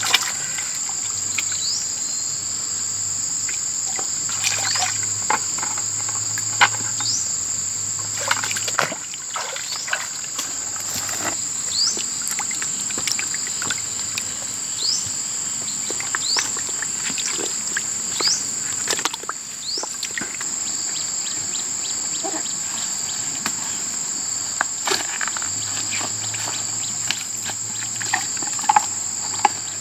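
Insects droning steadily at a high pitch, with short rising chirps now and then. Occasional splashes and clicks come from fish moving in a plastic bucket of water.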